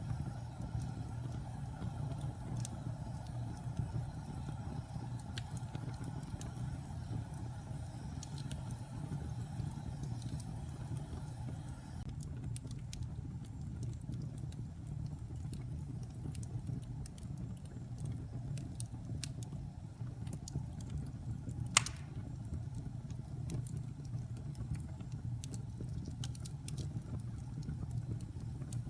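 Wood fire burning in a fireplace: a steady low rumble with scattered small crackles and one loud pop about twenty-two seconds in.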